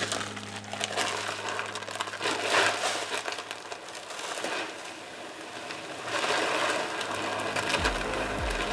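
Shelled corn being poured from a feed bag into a deer feeder: a gritty rushing of kernels that swells and eases in waves, with the bag crinkling.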